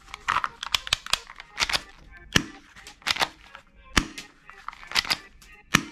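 Hard plastic toy pistol clicking and knocking as it is handled against other plastic toy guns: a series of sharp, irregular clicks, about two a second.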